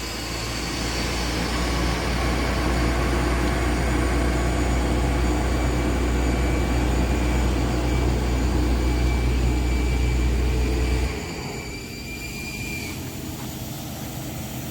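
A heavy engine running steadily with a loud low hum. About eleven seconds in it drops sharply to a quieter steady rumble.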